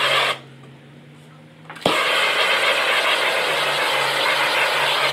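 Propane shrink-wrap heat gun running with a loud, steady rushing hiss that shuts off just after the start, leaving a low hum. About two seconds in it relights with a sharp click and runs again.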